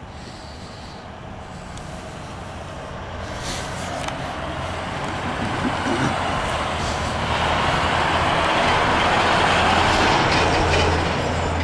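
A road vehicle passing on the street: a rush of tyre and engine noise that swells over several seconds, peaks near the end and then starts to fall away, with a low engine hum underneath.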